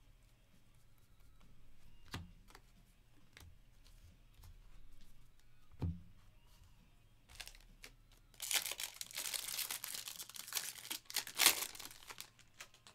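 Foil wrapper of a 2022 Topps Series 1 jumbo baseball card pack being torn open and crinkled, starting about eight seconds in and loudest near the end. Before that, two soft knocks, about two and six seconds in.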